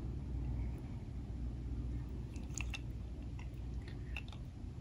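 A plastic Hot Wheels Color Reveal toy monster truck handled in the fingers: a few light plastic clicks and rubs in the second half, over a low steady hum.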